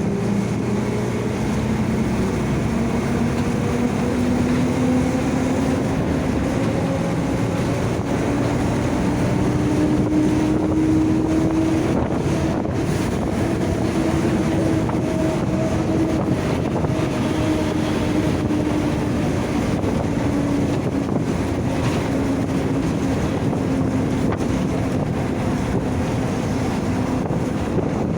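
Mercedes-Benz OF-1722M bus under way, its differential howling: a steady whine that climbs in pitch over the first ten seconds or so and then slowly sinks, over the drone of the diesel engine and road and wind noise.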